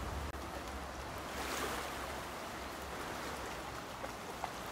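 Steady rush of a fast-flowing river, with light splashing from a dog wading in the shallows.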